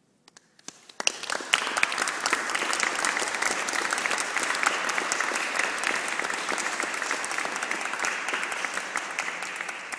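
Audience applauding: a few scattered claps, then about a second in the whole audience breaks into steady clapping.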